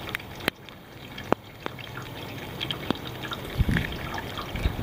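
Water dripping: scattered sharp drips at irregular intervals, with low thumps about three and a half seconds in and again near the end.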